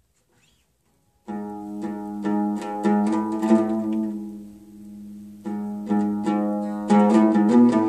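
Oud played solo, a melody of quickly plucked notes. It starts about a second in, dies away briefly near the middle and then picks up again.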